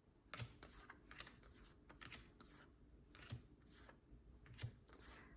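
Pokémon trading cards being slid and flipped one at a time from a freshly opened booster pack. Soft card swishes and taps come every half second to a second.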